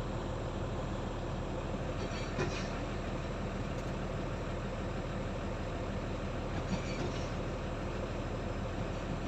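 Excavator's diesel engine running steadily, with two brief metallic clanks, one about two and a half seconds in and one about seven seconds in.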